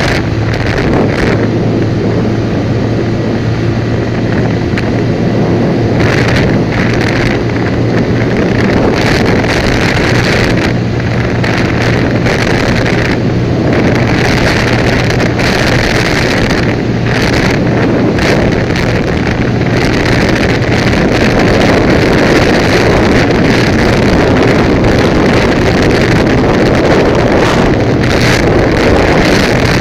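Motorcycle riding at a steady speed, with heavy wind rushing over the microphone and the engine's steady low hum under it.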